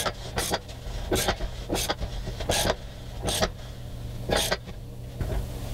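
Metal-on-metal clicks from the bearing carrier retainer ring and its tool being turned in by hand in an outboard lower unit, about seven clicks spaced roughly two-thirds of a second apart, over a faint steady hum.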